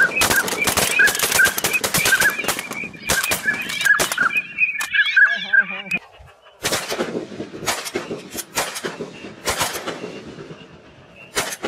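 Shotguns from several guns firing at a passing flock of ducks: a rapid, overlapping volley for about six seconds, then scattered single shots and one last shot near the end. Waterfowl calls pulse repeatedly through the first half.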